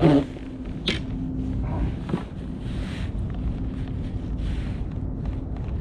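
Wind buffeting the microphone as a steady low rumble, with a few sharp knocks about one and two seconds in.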